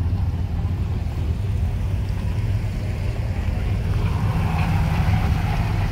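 A vehicle engine running with a steady low rumble, joined about four seconds in by a rise of higher-pitched noise.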